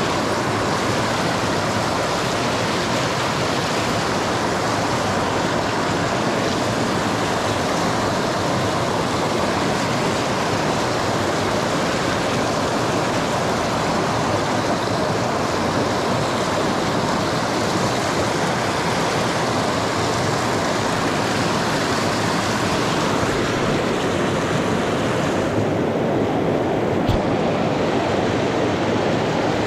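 Fast stream water rushing over rocks, a steady, even rush. Near the end the hiss turns duller, and there is one faint click.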